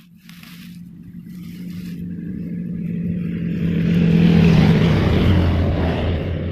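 A motor vehicle drives past, its engine note building to a peak about four to five seconds in, then dropping in pitch as it goes by and fades.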